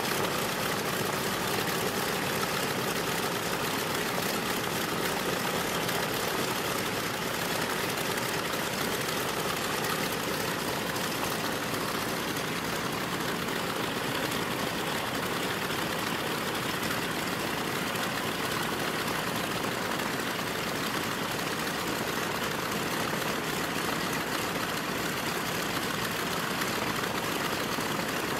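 B-25J Mitchell bomber's Wright R-2600 radial engines idling steadily, with no change in speed.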